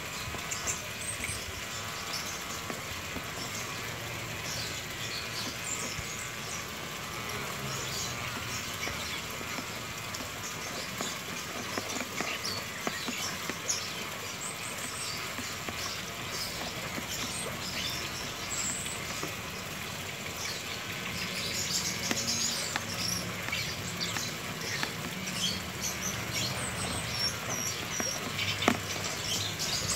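Corded electric pet clipper running steadily as it shaves a Pomeranian's coat, with small caged birds chirping throughout, more busily in the last several seconds.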